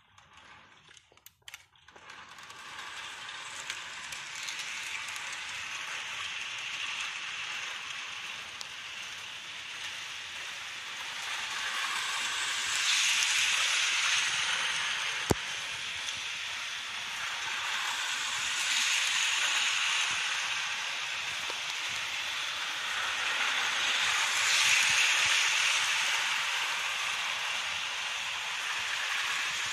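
Model electric train running on its track once the controller's speed knob is turned up: a steady whirring, rattling hiss of motor and wheels that starts about two seconds in and swells and fades about every six seconds. A single sharp click comes about halfway.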